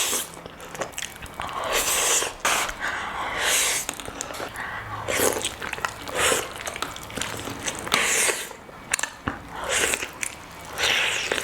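Close-miked eating: crunchy bites and chewing, with a crisp crunch every second or two.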